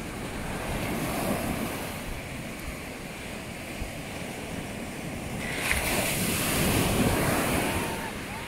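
Small ocean waves breaking and washing up a sandy beach. The surf swells briefly about a second in, then louder in a longer wash from about halfway through.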